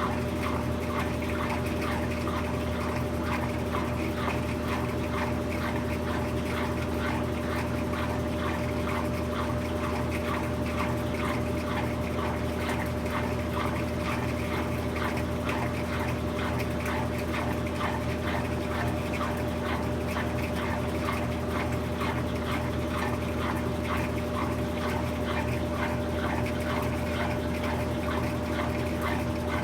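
Brastemp BWK17 17 kg washing machine running its quick cycle: a steady motor hum with a fast, even patter of water and rattle above it.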